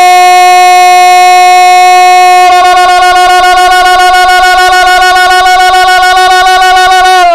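A man's long, drawn-out shouted goal cry, very loud. The voice holds one pitch, breaks into a rapid quaver about halfway through, and begins to sink in pitch at the end.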